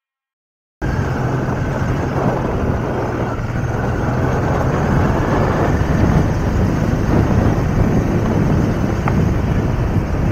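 Honda XL600V Transalp's V-twin engine running steadily under way on a dirt-and-grass track, with wind noise on the microphone. The sound cuts in suddenly about a second in.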